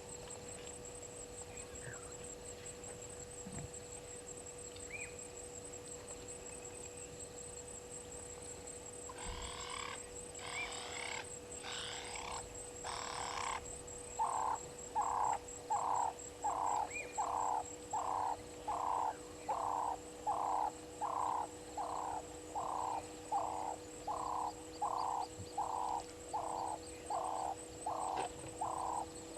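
A frog calling: a regular series of short croaks, about one and a half a second, starting about halfway through after a few rougher bursts. A constant thin high-pitched whine and a low hum run underneath.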